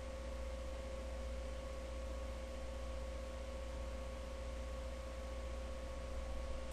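Steady background hum and hiss from the recording microphone, with a faint constant high tone held throughout.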